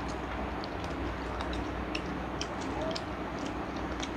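Chewing and lip-smacking of several people eating fried chicken by hand: irregular small wet clicks, several a second, over a steady low hum.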